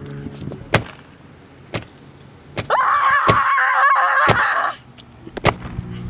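Repeated blows of a baseball bat striking a person, about one a second. A person screams for about two seconds midway through.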